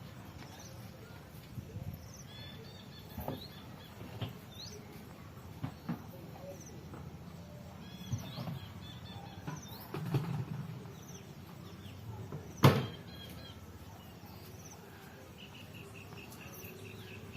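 Outdoor ambience with small birds giving short, scattered rising chirps, and a few soft knocks, the loudest a single sharp click about two-thirds of the way through.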